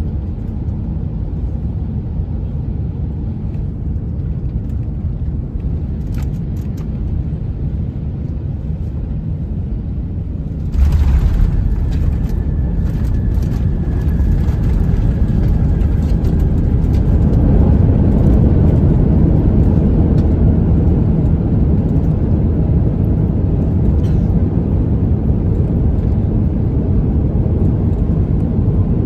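Airbus A350 cabin noise during landing: a steady low rumble, then a sudden jolt and step up in loudness about eleven seconds in as the wheels touch down. A few seconds later a louder rumble builds as the aircraft rolls out and slows on the runway.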